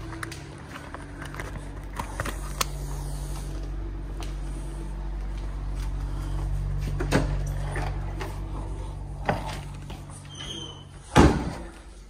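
A steady low hum under scattered light knocks and clicks, then a door banging shut about eleven seconds in, after which most of the hum drops away.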